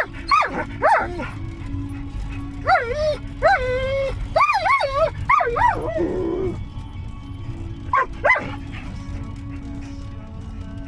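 A dog whining and yelping in high, wavering cries, with a run of them in the middle and a couple of short yips later, over the low rumble of the moving vehicle it rides in.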